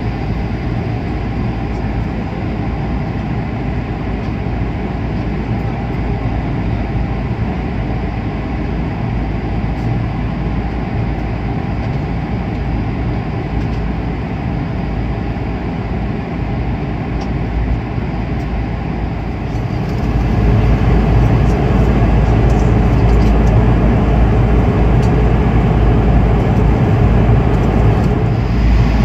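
Steady cabin noise of an Airbus A220 airliner in flight: a dense, low rush of engine and airflow noise with no rhythm. It steps up louder about twenty seconds in.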